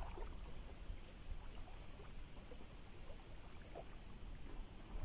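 Faint river ambience: soft, scattered splashes and lapping of water over a low rumble of wind on the microphone.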